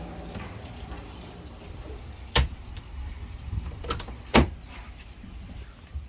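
Two sharp knocks about two seconds apart, with a few lighter clicks between and after them, over a low rumble: hard objects being handled and bumped in a boat's storage locker.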